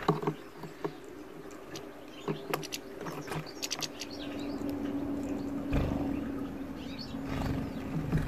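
Sharp clicks and ticks of a European goldfinch pecking and cracking black sunflower seeds in a metal feeder dish, over a low background rumble. A steady low hum sets in about halfway through.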